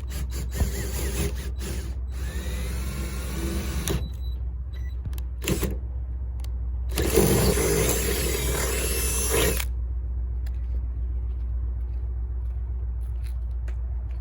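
Power drill running in two bursts, one of about four seconds and then one of about two and a half seconds, its whine rising and falling in pitch as it drills the mounting holes for a rear window spoiler. A steady low hum runs underneath.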